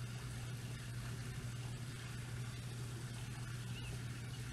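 A steady low hum with an even hiss: the background noise of a slide's voice recording after the name has been read, with no words spoken.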